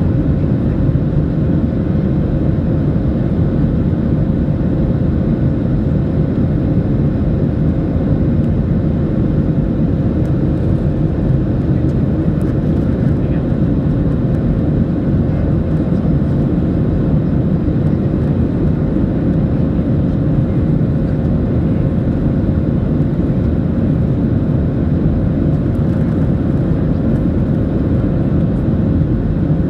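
Steady in-flight noise of a Boeing 737-800 airliner, an even rush of airflow and jet-engine sound with one steady hum, unchanging throughout.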